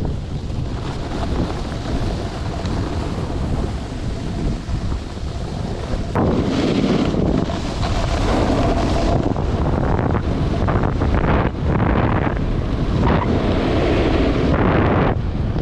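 Wind buffeting the microphone of a moving snowboarder, a steady rush that grows louder and rougher about six seconds in.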